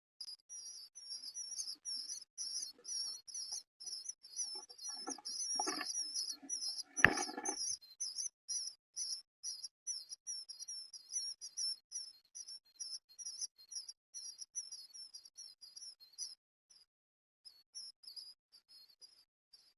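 Eastern bluebird nestlings begging: rapid high-pitched cheeping, about three calls a second, thinning out near the end. Rustling and one sharp knock about seven seconds in.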